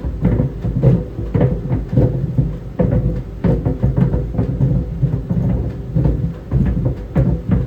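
Tennis balls tumbling in a running clothes dryer, thudding irregularly against the drum several times a second over the dryer's steady low rumble.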